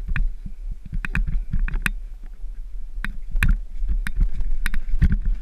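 Mountain bike rattling down a rough dirt trail: irregular sharp clacks and knocks from the bike over the bumps, over a steady rumble of wind on the microphone.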